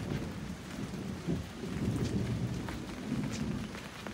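Light rain falling, with a low, steady rumble underneath and scattered sharp taps.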